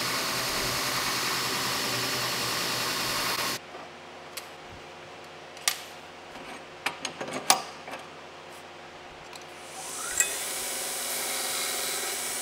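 A 2x72 belt grinder running with metal held against the belt on its tool table, which cuts off abruptly a few seconds in. Then a run of metallic clinks and knocks as the grinder's table holder is handled. Near the end the grinder motor winds up with a rising whine and runs steadily again.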